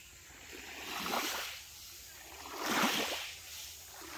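Small waves washing onto a sand-and-shingle shore from a calm sea, twice, about a second and a half apart; the second is the louder.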